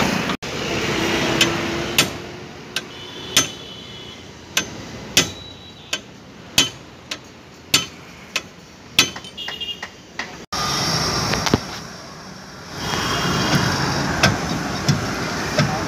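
Sharp metal-on-metal taps from a tool struck against the rear wheel hub of a Bajaj auto-rickshaw, a dozen or so at an uneven pace of roughly two a second. Some of them ring on briefly.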